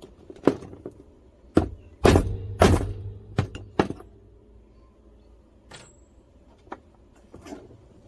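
A run of sharp knocks and thuds of hand tools against a plywood workbench, about six in the first four seconds, the two heaviest about two seconds in, then a few light clicks. The tools are a hammer and an adjustable wrench, at work on an EC8 connector.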